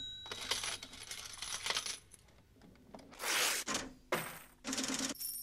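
Bursts of metallic clinking and jangling that come one after another, louder and quicker from about three seconds in, with brief ringing tones.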